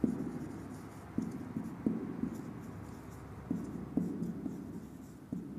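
Marker pen writing on a whiteboard: a series of short scratchy strokes and light taps as letters are formed.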